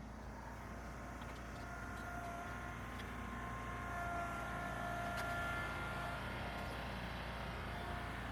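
Tractor engine running steadily under load, with a faint whine that wavers in pitch, while pulling out a large tree's root ball.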